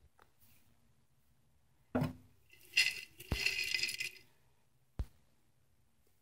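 A glass jar knocked and clinked while fingers dig through the nuts and raisins inside it, with single sharp knocks about two seconds in, in the middle of the rummaging, and again about five seconds in.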